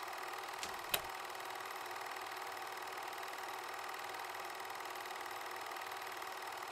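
Faint steady mechanical whir and hiss of a vintage film projector sound effect, with two short clicks about a second in.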